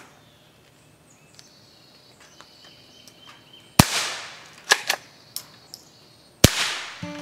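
Henry AR-7 .22 Long Rifle semi-automatic firing two single shots about two and a half seconds apart, each with a short fading echo. Small metallic clicks come before and between the shots as the action is worked by hand, because the low-powered CCI Quiet ammunition does not cycle it.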